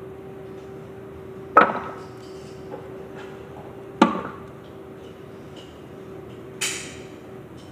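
Two sharp clattering knocks about two and a half seconds apart as breaded chicken pieces are knocked onto a metal air fryer rack, then a brief rustle near the end, over a steady low hum.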